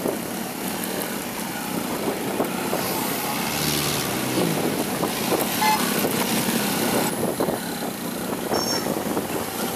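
Road traffic heard while riding among motor scooters and cars, their engines running steadily, with a short horn toot about halfway through.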